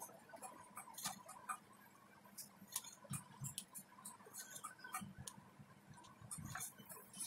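Faint, irregular small clicks and ticks from a thin stick and fingers working on a phone circuit board.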